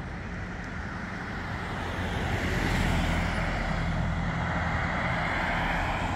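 Road traffic: cars driving past on a town street, a steady tyre and engine noise that grows louder over the first two or three seconds and then holds.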